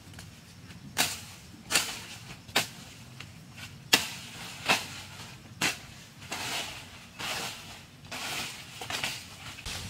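Branches and vines in a leafy thicket being cut with a blade: six sharp chops, each under a second apart, then a stretch of leaves rustling as the cut foliage is pulled about.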